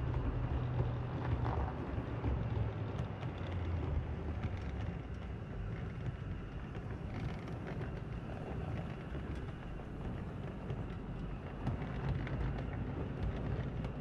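7mm-scale model train, a 2P locomotive with its coaches, running into the platform: a steady low rumble from the wheels on the rails and the motor, with scattered light clicks.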